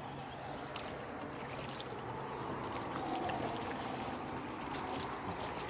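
Water trickling and splashing around a flat-bottomed rowboat under way, with a few faint clicks.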